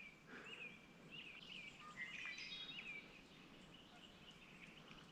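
Faint bird chirping: a quick series of short, high chirps that stops about three seconds in, over a faint outdoor hush.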